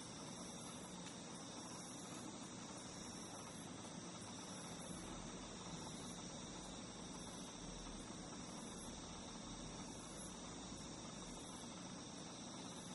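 Faint, steady chirring of singing insects, with a high pulsing note repeating a little more than once a second.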